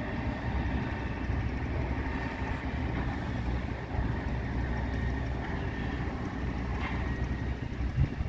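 Steady low rumble of vehicle engines running.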